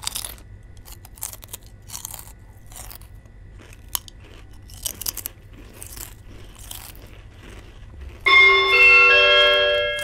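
Potato chips crunching as they are eaten, with the rustle of crisp bags, in scattered small crunches. About eight seconds in, a much louder sustained chord of several held notes comes in, the notes entering one after another, and fades toward the end.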